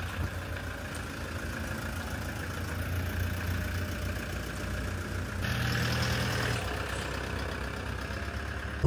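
A motor vehicle's engine running steadily with a low rumble, briefly louder for about a second past the middle.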